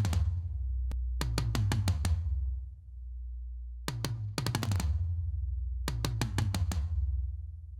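Heavy metal drum kit playing clusters of rapid, tightly spaced hits about every two seconds, over a continuous low bass.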